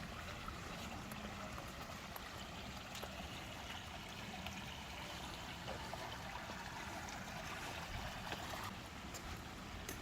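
Steady trickling, splashing water with small scattered drips.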